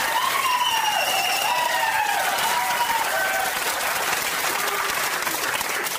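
Studio audience applauding and cheering in a vote by applause for the second idea, with voices calling out over the clapping in the first few seconds.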